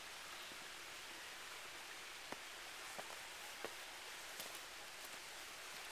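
Quiet outdoor background: a steady faint hiss, with a few small clicks and ticks in the middle of it.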